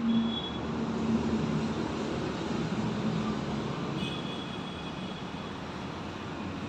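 Steady background vehicle noise with a low engine hum.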